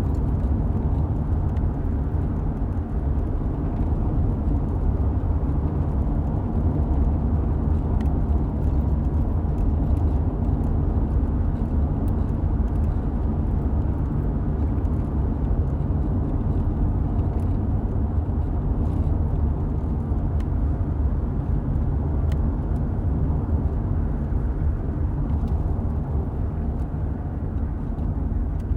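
Steady road noise of a car driving, heard from inside the cabin: a low, even rumble of tyres and engine with a faint steady hum, and a few light ticks.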